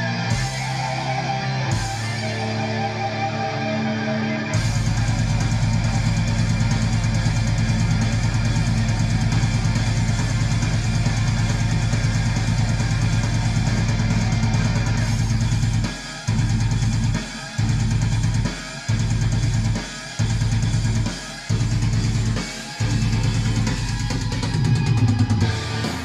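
Instrumental rock music with a drum kit and guitars: a lighter opening, the full band coming in about four seconds in, then a run of stop-start hits, six short breaks a little over a second apart, before the band plays on.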